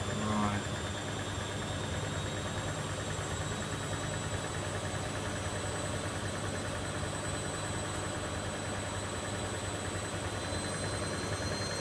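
Bosch Logixx 8 WAS28466 washing machine running with a steady motor hum.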